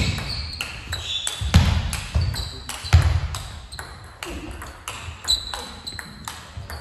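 Table tennis rally: the ball clicking off the bats and the table in quick succession, echoing in a sports hall. Between the shots come short squeaks from the players' shoes and the thuds of their footwork on the hall floor.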